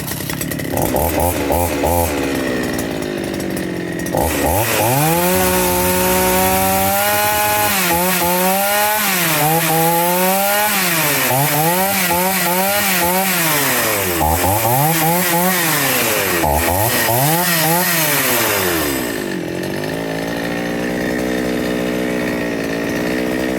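Generic 'chainsaw 4500' two-stroke chainsaw running with a freshly cleaned carburetor: steady fast idle at first, then revved up and blipped on the throttle about once a second, climbing cleanly without bogging, before settling back to idle and cutting off at the very end. It seems to be running great.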